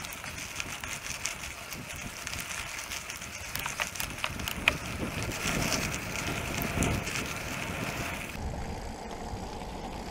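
Mountain bike descending a packed-gravel trail: tyres rolling over the surface with wind buffeting the microphone, and scattered sharp clicks and rattles from the bike over bumps, most of them about halfway through.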